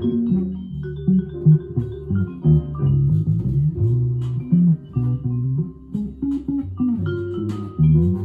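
Headless Cort guitar with flatwound strings playing a melodic line low in its range, many notes sliding up or down into the next.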